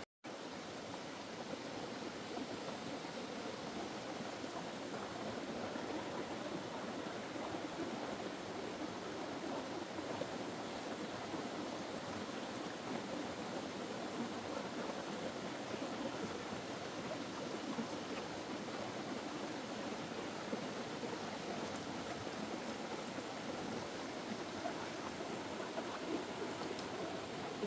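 Steady rushing noise like running water, broken by a brief dropout right at the start.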